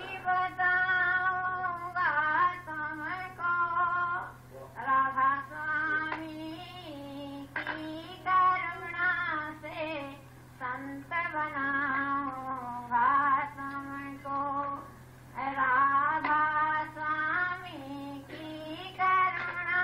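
A single high voice singing a devotional song in long held, wavering phrases with short breaks between them. A steady low hum runs underneath.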